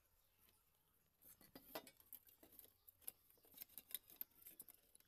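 Faint, irregular clicking and ticking of small objects being handled, starting about a second in after near silence.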